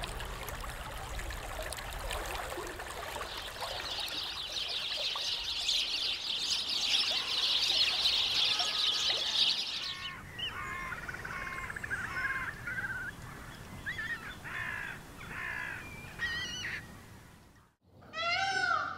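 A dense chorus of chirping birds swells over the first ten seconds. It gives way to a series of short, separate bird calls. Near the end, after a brief break, come loud calls of an Indian peacock.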